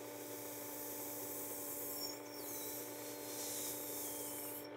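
Work Sharp power sharpener's motor running with a steady hum, spinning its abrasive disc while a rubber abrasive-cleaner block is pressed against it, adding a rubbing hiss. The cleaner is lifting metal filings that clog the abrasive.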